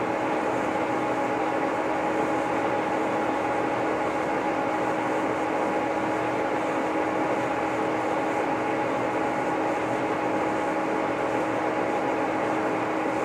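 1949 Lucas model 41 horizontal boring mill running steadily while it bores a pin hole, a constant machine hum with steady whining tones in it.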